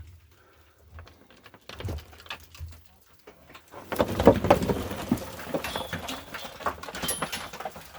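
Footsteps and scuffing on loose rock and debris on a mine floor: a few scattered clicks at first, then from about four seconds in a dense run of crunching, knocks and scrapes.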